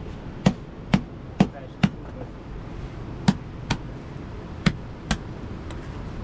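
Flatbread dough being slapped and patted by hand as it is flattened into a round: eight sharp slaps in three runs, about two a second.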